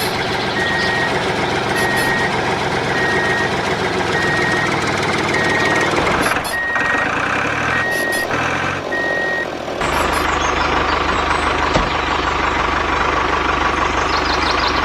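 Reversing-alarm beeps, a single high tone about once a second, over a running vehicle engine. The beeps stop near 9.5 s, leaving a steady engine hum.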